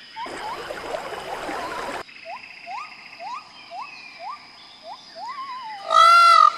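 Nature ambience: a frog croaking in short rising chirps about twice a second over a faint steady high insect tone, with a rush of noise for the first two seconds. Near the end a loud peacock call breaks in.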